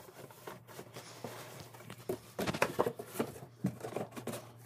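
Large cardboard box being handled: its flaps rubbing and tapping, faint at first, then a run of quick knocks and rustles from about halfway through.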